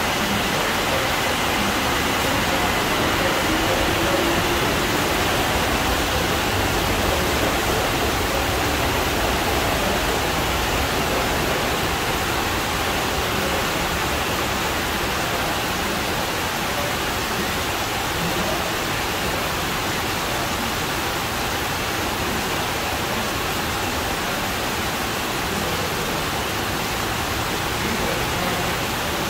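Rain pouring down steadily, an even, unbroken hiss of falling water.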